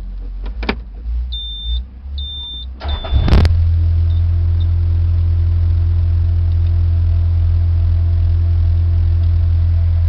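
A few clicks and three short high beeps from the skid steer's warning system, then the CAT 236 skid steer's diesel engine cranks briefly and starts about three seconds in, settling into a steady idle heard from inside the cab.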